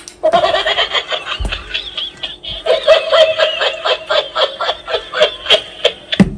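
Interactive spinning toy dog playing a recorded laughing sound effect through its small speaker, starting just after a click. It breaks off briefly about two and a half seconds in, then goes on.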